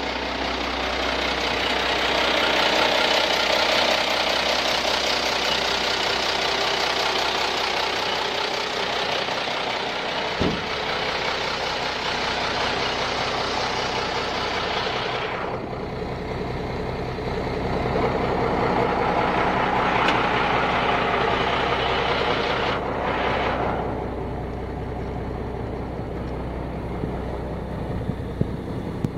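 A 1984 M923 5-ton military cargo truck's Cummins six-cylinder diesel idling steadily with a diesel clatter. It sounds harsher for the first half and quieter after about halfway, with one sharp click about a third of the way in.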